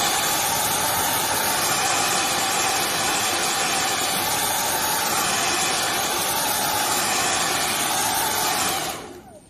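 Hand-held hair dryer blowing on its hot setting, heating a phone's glass back cover to soften the adhesive underneath. It makes a steady rush of air with a faint motor hum and is switched off near the end.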